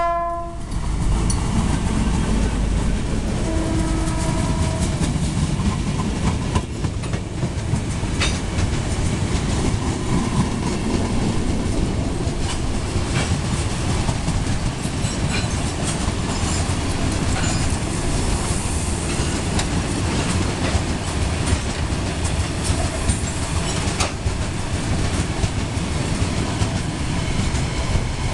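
Freight train led by an EMD G22CU diesel locomotive passing close by, with steady heavy rumble. A short horn note sounds about four seconds in. Covered boxcars and flat wagons roll past with wheel clicks at the rail joints.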